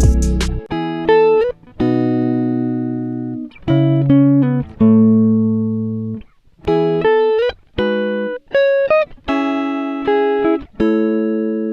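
Background music: plucked guitar chords, each struck and left to ring out and fade before the next.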